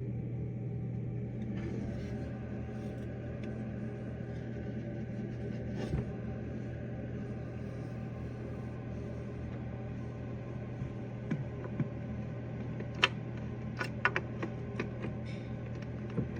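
A steady low hum with several steady tones over it, and a few sharp clicks and taps in the last few seconds.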